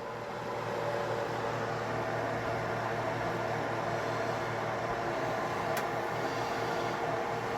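Pancake batter frying in hot vegetable oil in a pan: a steady sizzle over a steady hum, with one light click near the end.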